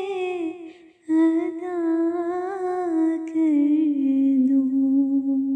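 A woman's solo voice singing the closing phrase of a naat, unaccompanied. It breaks for a breath about a second in, then ends on a long held note that sinks lower about four seconds in.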